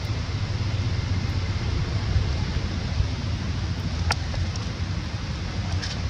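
Steady low rumble and hiss of wind buffeting the microphone outdoors. A brief faint high sound comes about four seconds in and another near the end.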